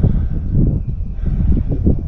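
Wind buffeting the microphone: an uneven low rumble that rises and falls in gusts, with no engine or saw running.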